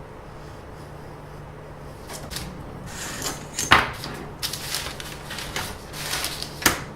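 Handling noise: a run of rustles and light clicks, with two sharp knocks, one just under four seconds in and a louder one near the end.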